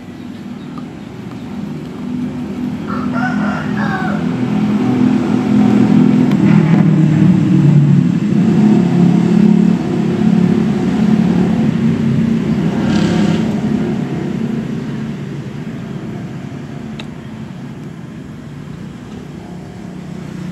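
A loud, low background rumble builds over several seconds, peaks, then slowly fades, with a short higher-pitched call about three seconds in.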